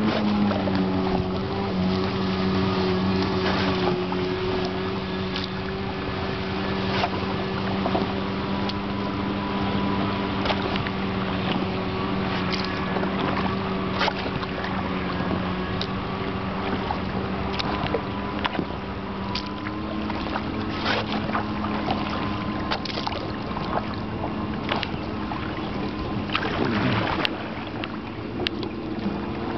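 A boat motor running steadily, its pitch shifting a little and dropping briefly near the end, with scattered short knocks over the drone.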